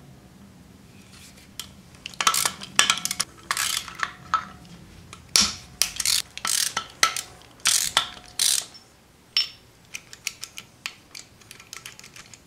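Socket ratchet with an extension clicking in quick bursts as 12 mm bolts are backed out of a Subaru EJ25 engine block's case halves. It thins to a few scattered ticks over the last few seconds.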